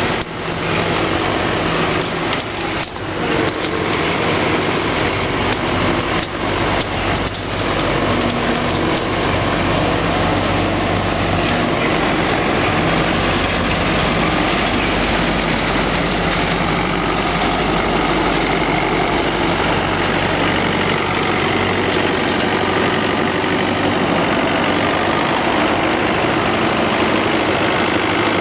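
Yenisei combine harvester's diesel engine running as the machine drives past close by on a muddy track, a steady heavy drone. Sharp clattering knocks come through it during the first several seconds.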